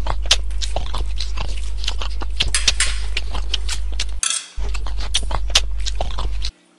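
A person eating fast and noisily: a rapid run of wet chewing and lip-smacking with cutlery on a plate, over a steady low hum. It cuts off abruptly shortly before the end.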